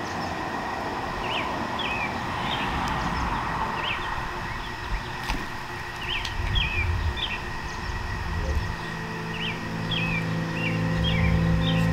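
A bird chirping short, repeated notes over a low background rumble. About two thirds of the way through, a droning music track fades in and builds.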